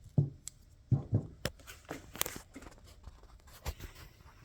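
Handling noise as a battery cable is lifted out of its soaking container: a handful of light, irregular knocks and clicks with some scraping in between.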